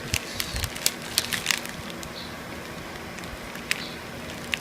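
Small plastic clicks and crinkles from gashapon figures and their packaging being handled. The clicks are busiest in the first second and a half, then come singly a few times.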